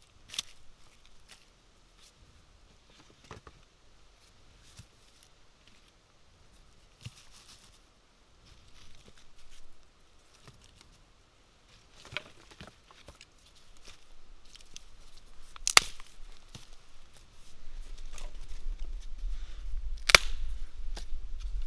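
Dry sticks and bark tinder being handled and laid on the forest floor to build a fire: scattered light rustles and knocks, with two sharp cracks in the last third. A low rumble comes in for the last few seconds.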